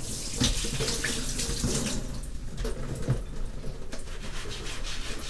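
Water running steadily from a kitchen faucet into the sink while dishes are washed by hand under it.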